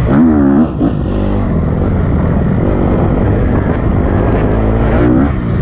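2012 KTM 250 XC-F four-stroke single-cylinder dirt bike engine revving up and down as it is ridden. The throttle is briefly closed a little under a second in, then opened again.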